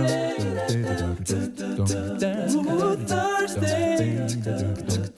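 Background music: a song with sung vocals over a steady low beat and crisp percussion.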